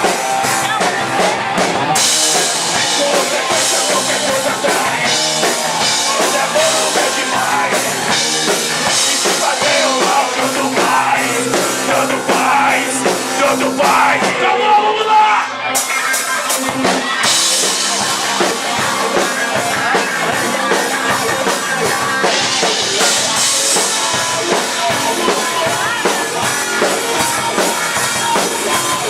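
Live rock band playing loud: drum kit with cymbals over guitars. About halfway through, the cymbals drop out for a moment before the full band comes back in.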